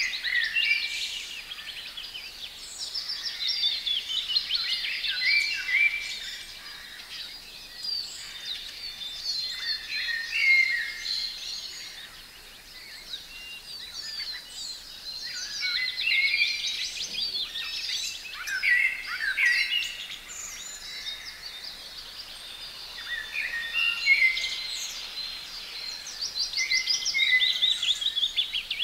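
Several songbirds singing at once, a dawn-chorus-like mix of overlapping whistled phrases, fast trills and chirps, rising and falling in loudness.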